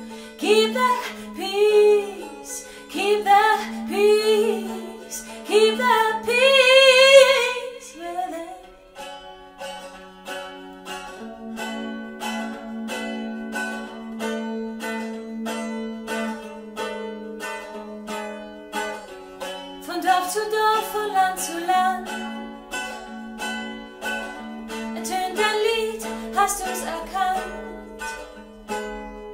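A woman singing with vibrato to her own strummed mandolin. The voice drops out for about ten seconds in the middle, leaving the mandolin playing alone, then comes back.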